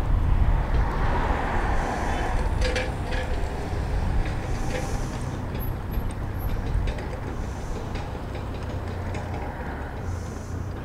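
Distant narrow-gauge steam train running along the lakeshore: a steady low rumble that fades gradually as the train moves off.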